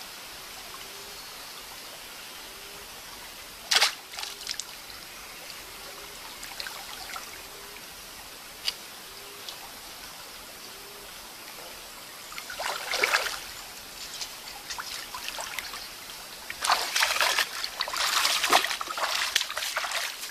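Water trickling in a shallow stream, with splashing and sloshing as a person wades and works a bamboo stick in the water. The splashing comes in a short burst about 13 seconds in and grows loudest and most broken over the last few seconds, with a single sharp click about four seconds in.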